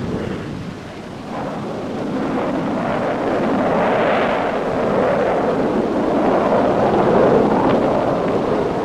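Vickers Valiant jet bomber flying low and slow past, the rushing noise of its four Rolls-Royce Avon turbojets swelling over several seconds and easing off near the end.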